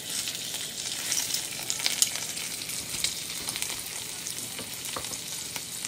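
Thin slices of bacon sizzling and crackling in a non-stick frying pan. There is a sharp click about two seconds in.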